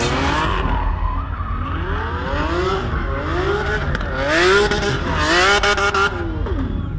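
A supercar's engine revving up and down in repeated sweeps as it drifts, with its tyres squealing. The loudest stretch comes about four to six seconds in.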